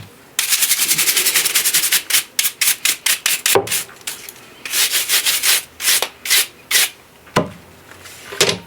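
G gauge model railway track being scrubbed clean by hand with fast back-and-forth rubbing strokes. A quick run of strokes comes first, then slower separate strokes, a pause about halfway through, and a second run of strokes.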